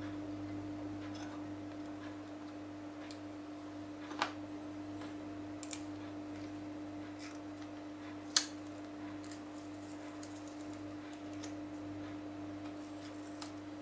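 Scattered small clicks and taps of tablet parts and a flex cable being handled during disassembly, two sharper clicks about four and eight seconds in, over a steady hum.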